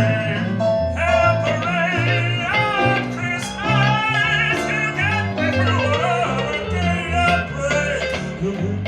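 A band playing a song: guitar over bass and drums, with bending lead notes and a sharp cymbal-like hit about three and a half seconds in.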